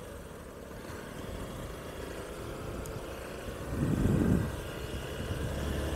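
Honda Bros 160 single-cylinder motorcycle engine running steadily while riding, with a louder rush lasting about half a second about four seconds in.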